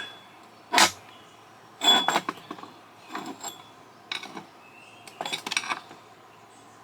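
Small metal parts of a satellite LNBF being taken apart, clinking and clattering as they are handled and set down: a sharp click about a second in, then several short rattling clatters.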